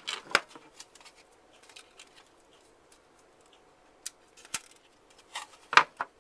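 Plastic cable tie being fed through and handled against the plastic alarm box and T-bar: scattered light clicks and taps with faint rustling, a few sharper knocks about a third of a second in, near four and a half seconds, and near the end.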